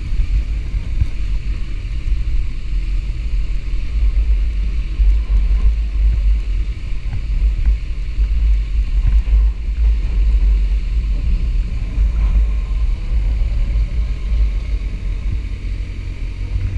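Sport motorcycle running at low road speed, heard from on board as a steady low rumble.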